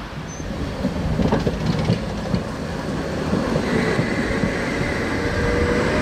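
An articulated tram passing close by at low speed: wheels clattering over rail joints and points, then a steady whine as it runs past.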